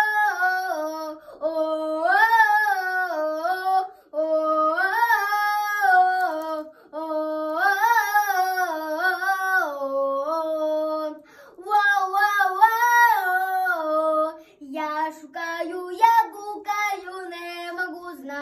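A young girl singing in long held notes that waver in pitch, in phrases of two to three seconds with short breaks between them. The notes turn shorter and choppier near the end.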